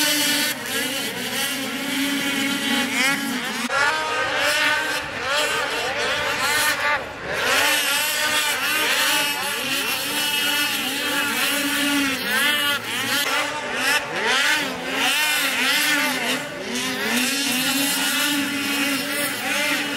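A pack of two-stroke snocross race snowmobiles at full race pace, several engines overlapping, each pitch rising and falling as the sleds throttle through turns and jumps.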